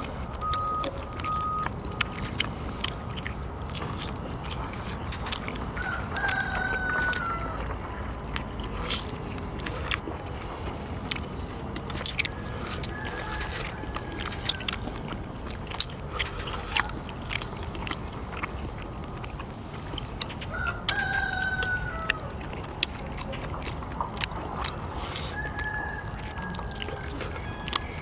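A rooster crowing, two clear crows about 6 and 21 seconds in, with fainter calls in between. Frequent short clicks and taps of eating run underneath.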